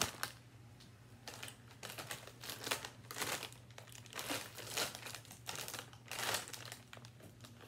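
Foil potato-chip bag (UTZ Ripples barbecue) crinkling and rustling in a hand, in a run of irregular short bursts.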